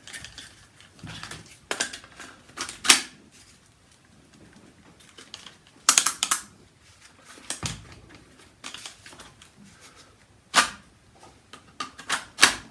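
Sharp clicks and snaps of hard kydex plastic being handled, a dozen or so, some in quick pairs, as finished magazine pouches are worked.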